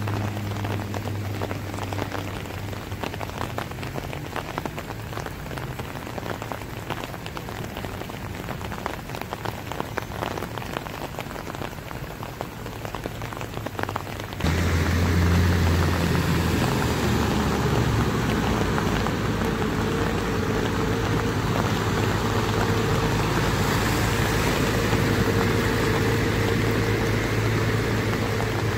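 Heavy rain pattering down over a flooded street, with a low steady engine hum from vehicles wading through the water underneath. About halfway through it turns suddenly louder and stays so.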